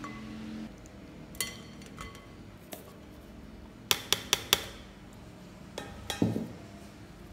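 A metal whisk and a wire mesh sieve knocking against a glass mixing bowl: a few light clinks, then a quick run of four sharp clinks about four seconds in, and a duller knock near the end.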